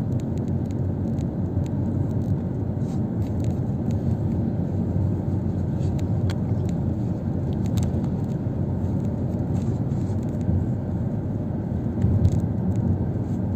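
Steady low engine and road rumble heard from inside a moving bus, with a few faint clicks and rattles.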